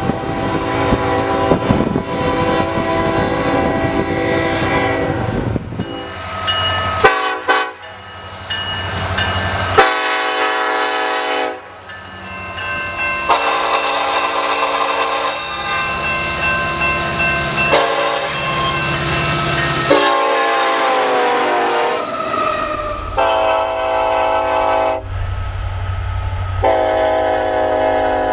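A run of Nathan Airchime locomotive air horns, cut together from several passing trains: long multi-note chords and a few short blasts, one chord sliding down in pitch. A low train rumble runs underneath.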